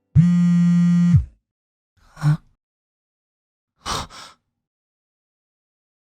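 A steady electronic buzz, low-pitched and harsh, held for about a second; it repeats one just before. A short soft sound follows about two seconds in, and two more near four seconds.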